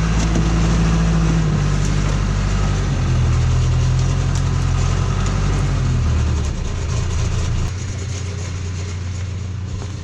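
John Deere 310C backhoe's diesel engine running while the machine travels. Its pitch drops in steps as it slows, and it gets quieter over the last few seconds.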